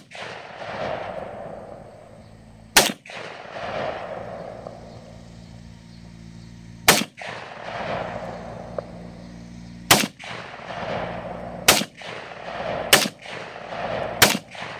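AK-pattern pistol fired in single, unevenly spaced shots, about seven of them one to four seconds apart, each crack trailed by about a second of echo.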